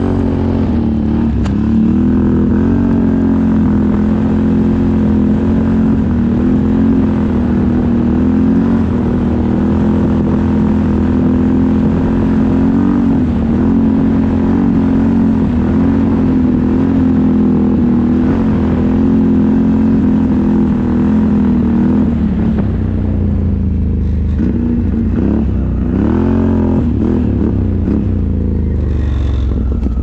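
Can-Am ATV engine running steadily at a cruising pace, with tyre and wind noise underneath. Near the end its pitch dips and rises a few times as the throttle is eased off and opened again.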